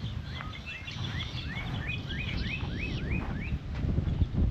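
A bird singing a run of about ten quick rising notes, which stop about three and a half seconds in, over a steady low rumble.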